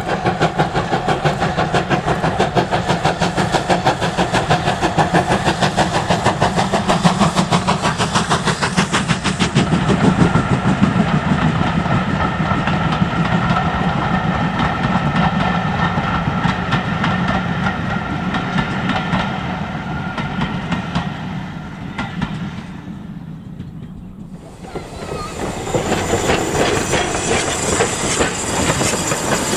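Steam locomotive No. 2999, a GWR Saint class two-cylinder 4-6-0, working a passenger train past: fast exhaust beats, then the clatter of coach wheels over rail joints as the coaches go by, fading out about 22 seconds in. A few seconds later a different scene starts, with steam locomotives at a station and a steady hiss of steam.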